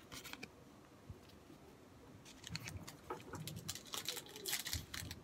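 Football trading cards being handled and shuffled in the hand: faint scattered clicks of card edges and rustling, busier from about two seconds in.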